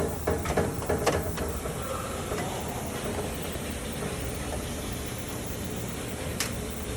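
Steady low hum with a few light clicks and taps of wiring being handled and fitted into a cable clip inside a vending machine cabinet. The clicks cluster in the first second or so, with one more near the end.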